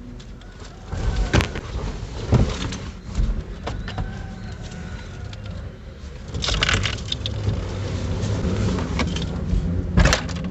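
Sharp metallic clicks and a brief clatter of tools and loose parts being handled while a car's steering wheel is taken off, over a steady low hum.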